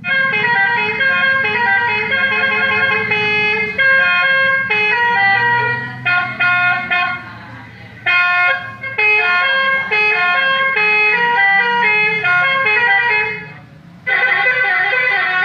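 Electronic telolet horn module playing melody tunes through a toa horn loudspeaker: runs of stepped, beeping notes, with short breaks about halfway and near the end. A low hum runs underneath.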